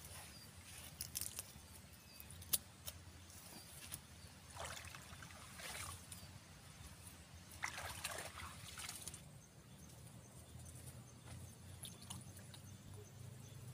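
Shallow river water sloshing and splashing as a bamboo pole is worked in it at the bank, in two bursts a few seconds apart, with a few small sharp clicks before them.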